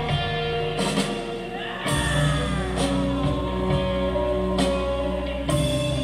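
Live band playing on stage through a concert PA: sustained keyboard and guitar tones with scattered drum hits, and a deep bass line that comes in about two seconds in.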